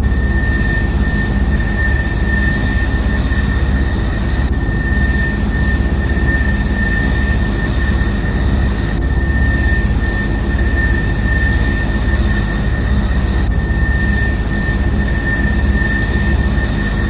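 Steady aircraft engine and propeller drone with a high, even whine, the same stretch of sound repeating about every four and a half seconds.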